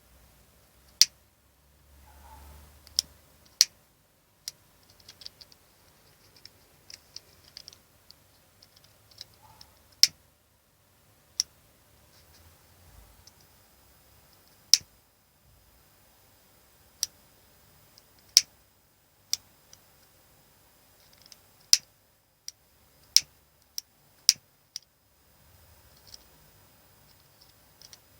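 A lighter being clicked again and again: about fifteen sharp single clicks at uneven gaps of one to three seconds, with quieter small rattling and handling noises between them.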